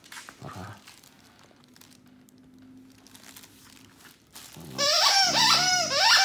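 A plush burrito dog toy's foil wrapper crinkling faintly as the corgi mouths it. About four and a half seconds in, a loud run of high-pitched, quickly rising and falling voice-like sounds begins.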